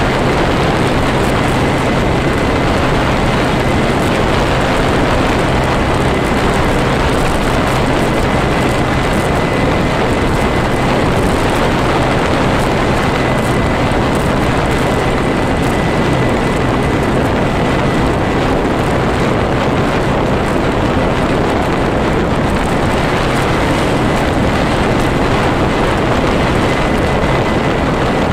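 Vehicle travelling at speed: a steady, loud rush of wind and road noise with a constant low hum underneath, unchanging throughout.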